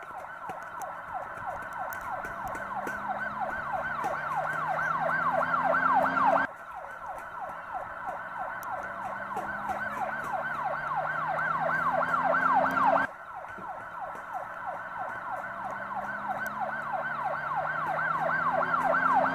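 Siren-like wailing: a fast, rapidly repeating up-and-down sweep that grows steadily louder, then cuts off abruptly and starts over quieter, twice.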